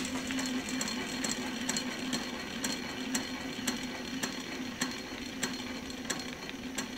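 Homemade buggy's 31cc two-stroke string-trimmer engine running steadily, driving a fast-spinning rear wheel through a roller chain. A sharp click repeats about twice a second throughout.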